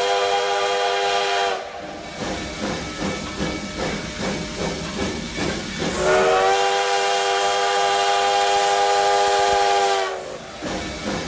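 Steam locomotive whistle sounding a chord of several notes, which stops about a second and a half in. Then come puffs and hiss of steam, a second long whistle blast from about six seconds to ten, and more puffing and hissing.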